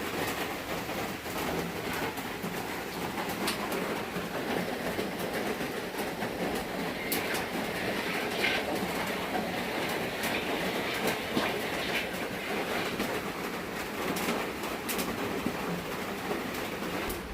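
Rain drumming on a corrugated iron-sheet roof: a steady, dense patter scattered with sharp ticks. It is loud enough that it is called crazy.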